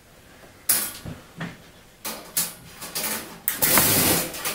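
Galvanized wire-mesh cage trap rattling and clanking as it is handled and shifted, in several short clatters with a longer, louder rattle near the end.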